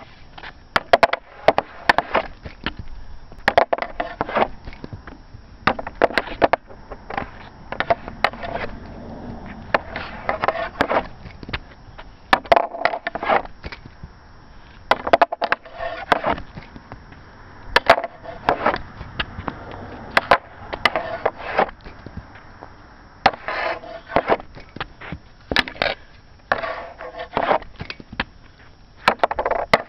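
Hockey stick striking pucks in a string of wrist shots, a sharp clack every two to three seconds, each shot made of a few quick knocks close together.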